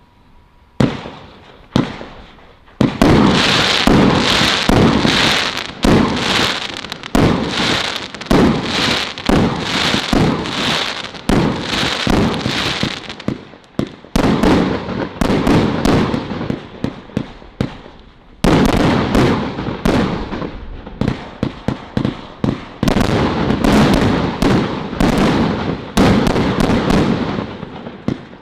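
Firework barrage cakes firing: a rapid string of sharp launch and burst reports. The bangs come in a steady pulse of about two a second, thin out for a few seconds in the middle, then a fresh dense run starts.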